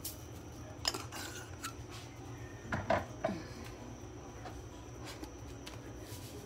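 A small seasoning shaker of garlic seasoning being shaken and handled: a few light clicks and taps, then a louder cluster of knocks and clinks about three seconds in.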